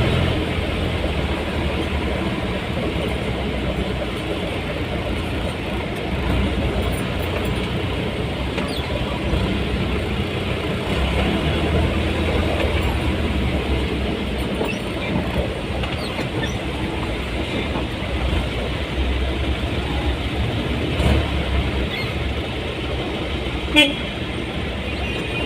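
Road traffic and vehicle engine noise, a steady rumble, with a short horn toot near the end.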